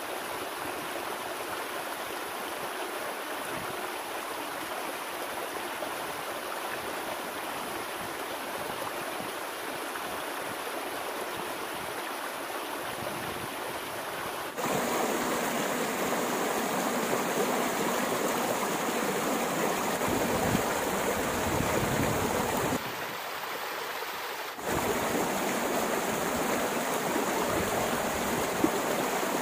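Steady rush of a flowing stream. It gets louder about halfway through, drops back for a couple of seconds, then comes up again.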